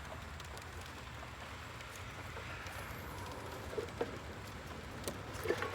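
Faint background hiss with a few light clicks and taps, about two-thirds of the way through and again near the end.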